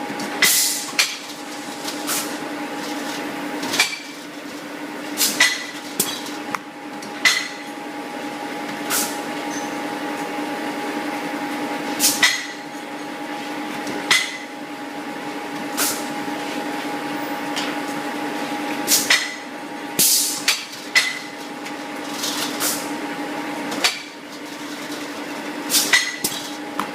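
Manual blow moulding machine at work: irregular sharp knocks and clacks every second or two, with a few longer noisy bursts, over a steady machine hum.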